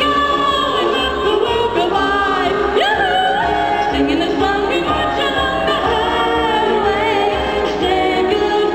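A woman singing a song over musical accompaniment, amplified through a PA system.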